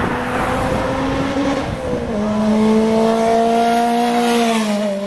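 Turbocharged Honda Prelude's four-cylinder engine making a full-throttle pull: the pitch climbs, drops with an upshift about two seconds in, climbs again, then falls near the end.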